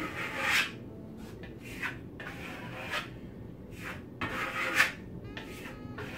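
Steel Venetian plaster trowel scraping over decorative plaster on a board in several separate swipes, the loudest about five seconds in.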